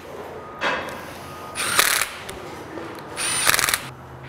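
Cordless impact driver running in three short bursts, hammering as it drives and snugs the bearing housing's bolts.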